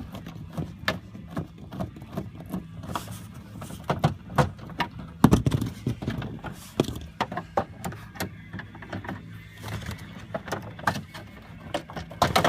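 Scattered clicks and knocks of hand tools and screws against the plastic cover of a massage chair as its back screws are taken out, with one louder knock about five seconds in. A steady low hum runs underneath and fades near the end.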